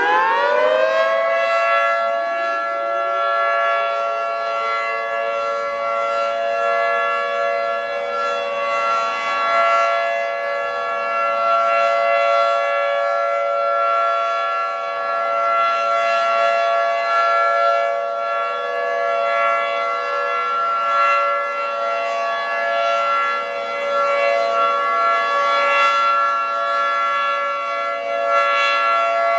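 Federal Signal 2T22 dual-tone outdoor warning siren finishing its wind-up to full speed in the first second or two, then holding a steady two-tone chord: the steady Alert signal of a tornado siren test.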